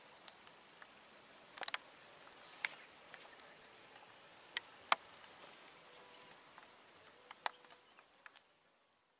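A steady, high-pitched insect chorus shrill from the surrounding scrub, with a few sharp clicks scattered through it. It fades out near the end.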